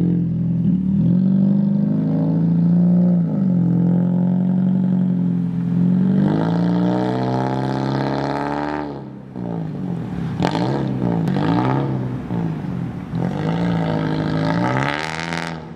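Toyota Yaris's four-cylinder engine through a straight-pipe exhaust with Weapon R headers and intake. It runs at a steady drone, revs up about six seconds in, then gets quieter with several revs rising and falling in pitch.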